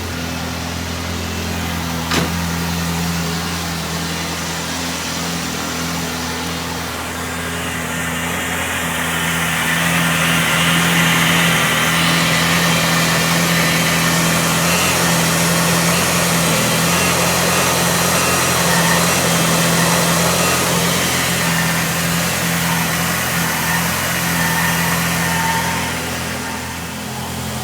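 Car engine idling steadily, with one sharp click about two seconds in. A louder rushing noise builds from about ten seconds in and fades out near the end.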